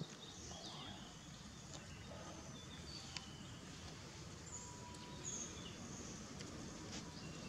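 Faint outdoor ambience: a steady low hiss with scattered short, high bird chirps and a few small clicks.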